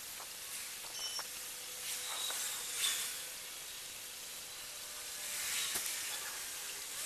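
Water in a clear plastic tank fizzing as Sera Pond Algokill dissolves in it, countless fine bubbles rising to a foamy surface: a steady hiss with small scattered pops.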